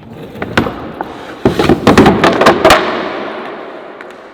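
A quick run of sharp wooden cracks and clattering knocks, thickest in the middle, from a wooden furniture piece being smashed and breaking apart.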